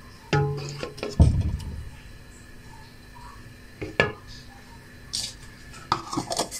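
A spoon knocking and scraping against a metal pot of thick strawberry jam: a run of clinks in the first second or so with one louder knock, a single clink about four seconds in, and a quick cluster of clinks near the end.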